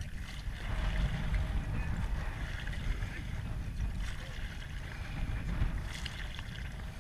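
Steady noise of moving river water around a raft on the Rio Grande, with wind rumbling on the microphone.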